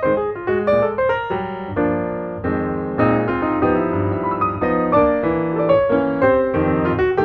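Background piano music: a run of quick notes over sustained chords.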